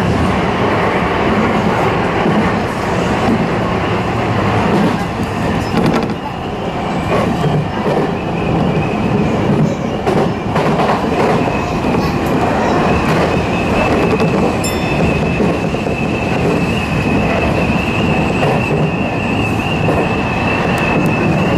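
Tokyu Toyoko Line electric commuter train running on the rails, heard from the front of the train: a steady rumble of wheels and running gear. About six seconds in, a high whine joins it and rises slightly in pitch.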